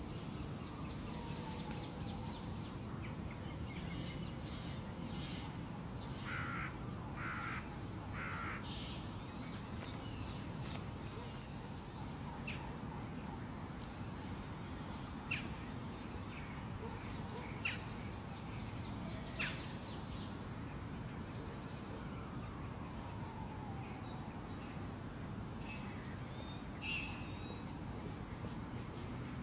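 Birds calling outdoors: short high chirps recurring throughout, with three lower calls in quick succession about six seconds in, over a steady low background noise.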